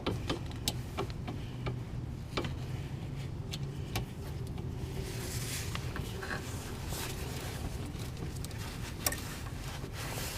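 Scattered metal clicks and taps of a wrench and socket working a wheel hub's mounting bolts, over a steady low hum.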